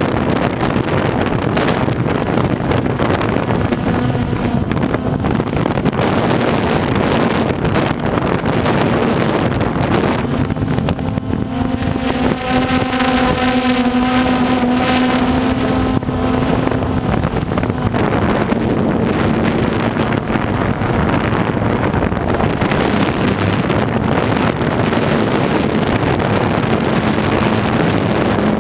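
DJI Phantom 1 quadcopter's motors and propellers humming with a steady tone, picked up by the onboard camera's microphone under heavy wind buffeting. About ten seconds in, the hum grows stronger and richer, then eases back after about seventeen seconds.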